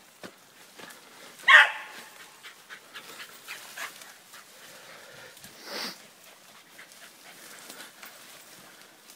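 Hound baying while trailing a rabbit: one loud bay about a second and a half in and another near six seconds, with brush crackling in between.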